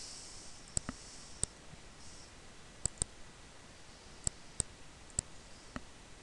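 Computer mouse button clicking: about nine sharp, separate clicks, some in quick pairs, as text in a document is clicked into and selected.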